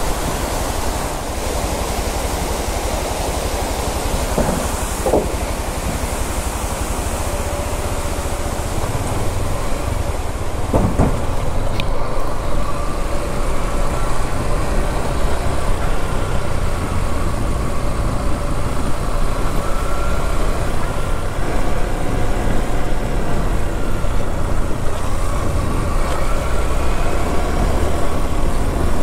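Yamaha XTZ 150's single-cylinder four-stroke engine running while the bike rides along, its faint pitch wandering up and down with the throttle, under heavy wind rumble on the rider's microphone. It grows a little louder about ten seconds in, and there are two brief knocks in the first half.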